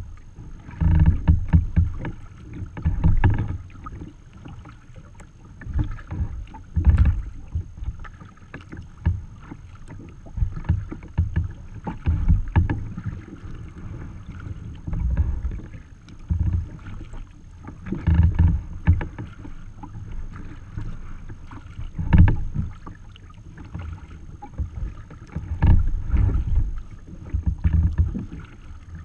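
Water splashing and lapping against the hull of a sea kayak as it is paddled through light chop, heard close up at the bow, with low rumbling surges every two to three seconds.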